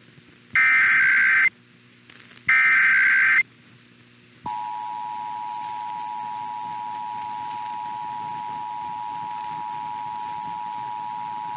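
Emergency Alert System test: two bursts of SAME header data, each about a second long with a short gap, a buzzy digital screech. About 4.5 seconds in, the steady EAS two-tone attention signal (853 and 960 Hz together) starts and holds.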